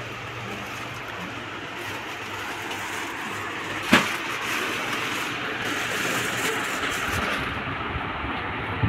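Steady background noise of a shop interior with a low hum, and one sharp knock about four seconds in that is the loudest sound.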